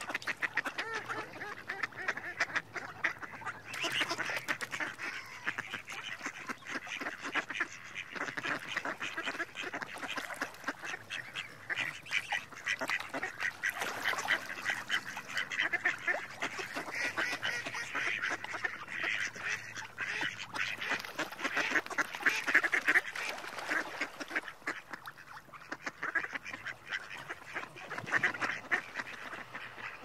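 Mallard quacking in a dense run of short, rapid calls.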